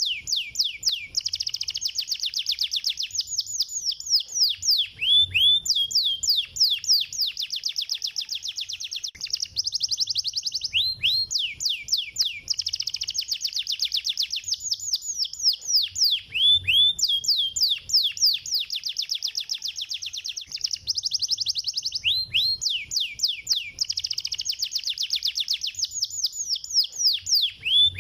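Domestic canary singing a fast, tightly packed song: long runs of rapidly repeated notes that each sweep downward, with short breaks about every five to six seconds.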